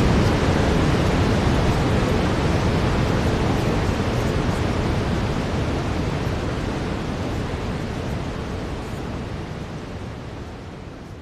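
Brown noise: a steady, even rushing hiss weighted to the low end, fading out gradually over the whole stretch.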